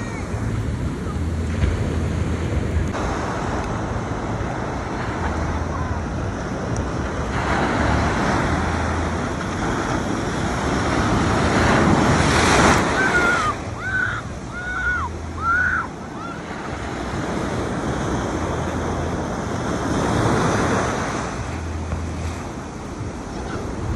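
Ocean surf breaking and washing up the shore in a continuous rushing wash, with one big wave crashing loudest about halfway through.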